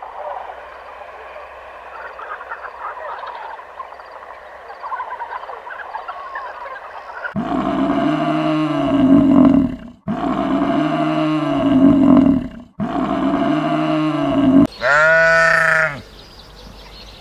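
A farm animal bleating: after a few seconds of faint background with light chirps, three long drawn-out bleats follow one another, then a shorter wavering bleat.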